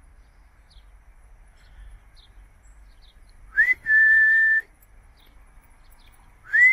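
A person whistling a dog recall call: a short rising note, then a long level note, about three and a half seconds in, with the same call starting again at the very end. Faint bird chirps between the calls.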